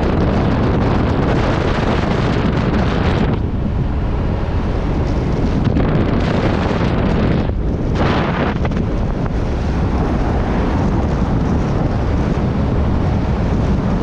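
Wind buffeting the microphone held out of the open window of a moving vehicle, a loud continuous rush over the rumble of road and engine. The high hiss eases for a couple of seconds about three seconds in and again briefly near eight seconds.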